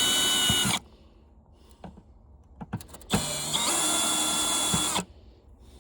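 Power drill-driver running in two bursts, its motor whine stepping up in pitch as it comes up to speed, while it backs screws out of the fan housing. A few light clicks come between the two runs.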